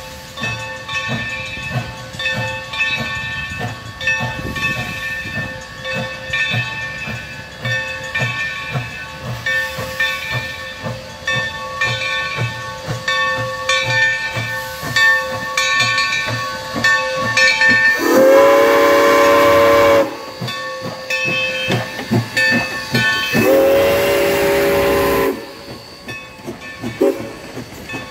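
Departing 2-8-2 Mikado steam locomotive No. 3025, its bell ringing steadily about twice a second over hissing steam and exhaust chuffs. Its steam whistle then sounds two long blasts, about 18 and 23 seconds in, louder than anything else.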